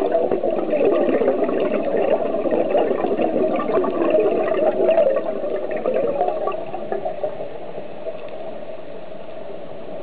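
Scuba diver's exhaled regulator bubbles gurgling and rumbling, heard underwater. The bubbling dies down to a quieter, even hiss about six and a half seconds in, as the breath out ends.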